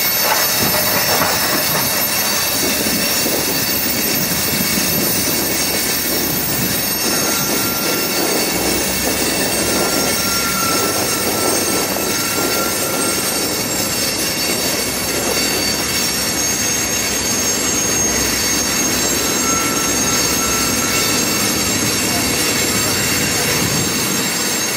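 Double-stack container freight train rolling past, with the steady running noise of its wheels and cars on the rails. A few short, faint high-pitched wheel squeals come and go.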